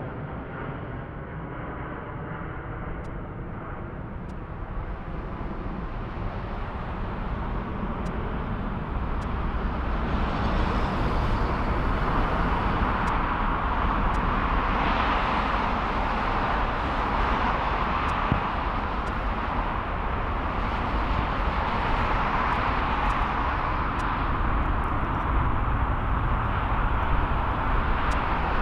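Jet airliner engines at the airport, a rushing roar that builds over the first several seconds and then holds loud and steady.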